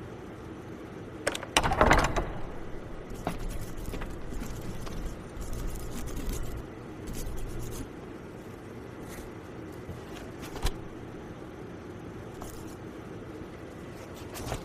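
Scraping and clicking handling noises over a low background, with a louder rough scrape about two seconds in and a few sharp clicks later.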